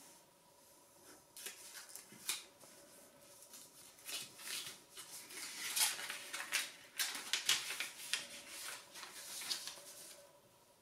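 Origami paper rustling and crinkling as hands fold, crease and handle it: a run of short crackles, busiest and loudest around the middle.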